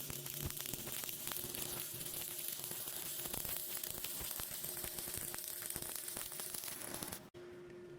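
Electric welding arc crackling and sizzling steadily with dense, irregular pops. It cuts off abruptly about seven seconds in, leaving a quiet steady hum.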